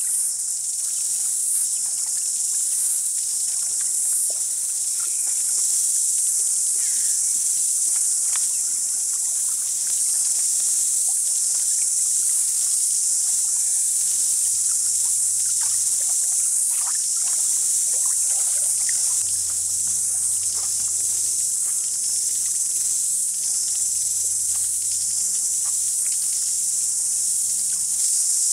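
Night-time chorus of crickets and other insects: a dense, steady high-pitched chirring, with a faint low hum joining about halfway through.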